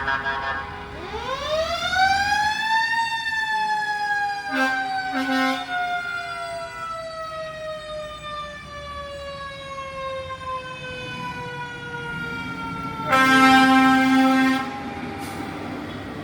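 Fire truck siren on a 2018 E-One Cyclone tower ladder winding up over about two seconds, then slowly winding down. A short air horn blast sounds about five seconds in, and a longer, louder air horn blast near the end.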